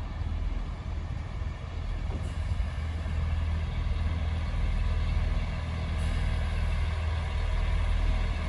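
A Class 166 diesel multiple unit arriving slowly along the platform. Its diesel engines run with a steady low hum that grows louder as the train draws near.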